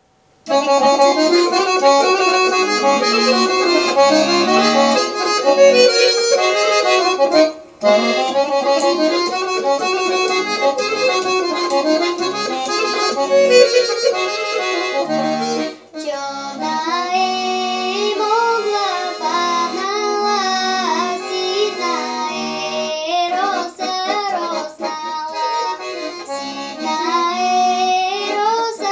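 Rhodope folk song: an instrumental introduction, broken by a brief pause about a quarter of the way in, then a young girl's voice starts singing over the accompaniment a little past halfway, with wavering, ornamented pitch.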